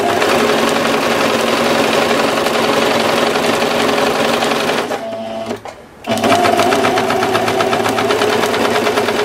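Electric domestic sewing machine stitching steadily, its needle beating in a fast, even rhythm, through two layers of cotton with fusible fleece between them. It runs in two stretches, stopping briefly about five seconds in.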